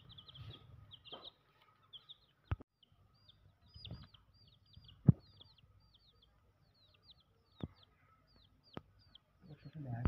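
Baby chicks peeping: a quick string of short, high cheeps, each falling in pitch. Several sharp knocks break in, the loudest about five seconds in.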